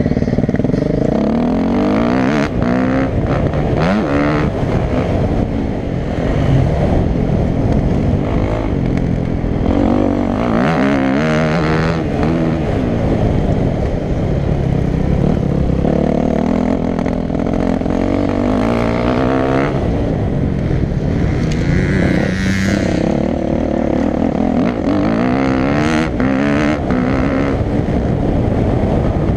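Motocross bike's engine heard close up from onboard, revving up and dropping back again and again as the rider accelerates through the gears and backs off.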